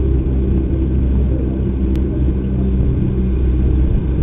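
A steady low engine-like hum, with a single sharp click about two seconds in.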